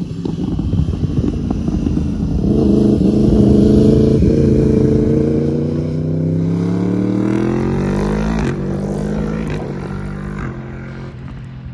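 2016 Yamaha R1's cross-plane inline-four running loud through a factory Akrapovic silencer and a titanium decat link pipe, its pitch rising and falling as the revs change. It builds to its loudest about four seconds in, then slowly fades.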